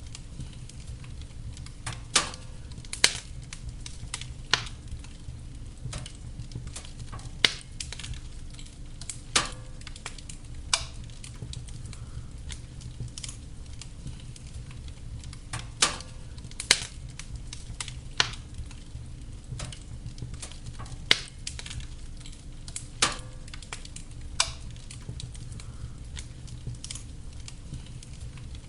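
Wood fire burning in a fireplace, crackling with irregular sharp pops over a steady low rumble.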